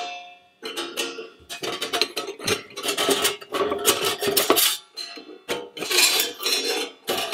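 Metal parts of a Skotti folding portable gas grill clinking and knocking together as its long burner tube is slotted into the plate frame, a string of irregular clicks and clanks with brief ringing.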